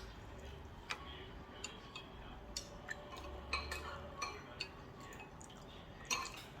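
Scattered light clicks and taps of tableware during a meal, like utensils touching a bowl or plate. There are sharper knocks about a second in, a cluster around the middle and one near the end.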